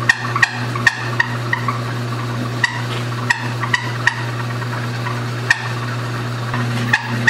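Wood lathe's electric motor running with a steady hum, with irregular sharp ticks and light rattles from the machine.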